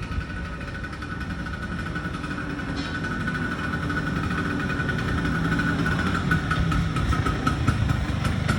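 Vespa Arcobaleno scooter's single-cylinder two-stroke engine idling steadily, growing gradually louder; the engine is in good shape.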